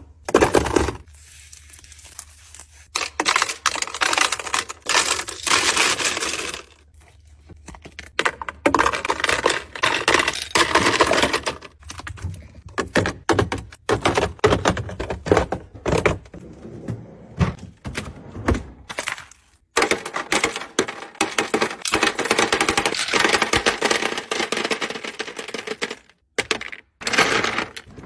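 Ice cubes and ice balls clinking and clattering against clear plastic storage bins as they are dropped in, handled and scooped. The sound comes as runs of quick clicks and rattles with short pauses between them.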